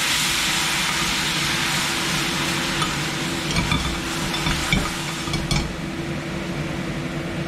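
Soy sauce, rice vinegar and sugar sizzling in a hot stainless steel frying pan, stirred with a slotted metal spatula that scrapes and clicks against the pan. The sizzle thins out over the second half as the sauce settles.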